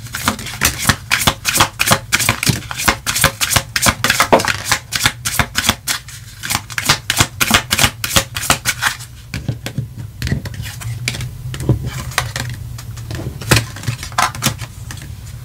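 A deck of tarot cards being shuffled by hand: a fast run of riffling card clicks for about nine seconds, then only scattered taps as cards are drawn and laid down. A low steady hum runs underneath.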